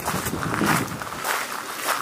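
Footsteps crunching on a gravel path at a walking pace, about two steps a second.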